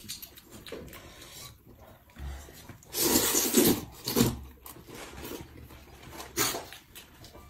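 Noodles being slurped from bowls: a long, loud slurp about three seconds in, then shorter slurps a second and about three seconds later.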